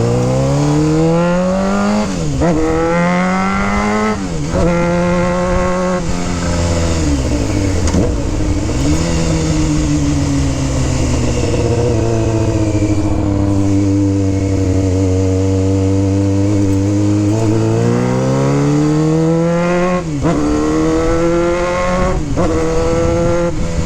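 2001 Honda CBR600F4i's inline-four engine accelerating hard through the gears, its pitch climbing and dropping at two upshifts, then easing off the throttle and settling to a long steady cruise. Near the end it pulls hard again through two more upshifts.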